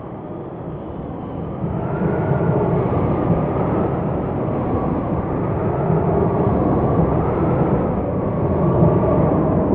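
Thunder sound effect: a deep rolling rumble that swells over the first couple of seconds and then rolls on steadily without a sharp crack.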